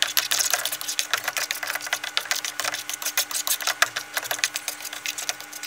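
Black plastic slotted spatula scraping and tapping quickly against a nonstick frying pan as it chops scrambled eggs into small pieces: fast, irregular clicks and scrapes, with a faint steady hum underneath.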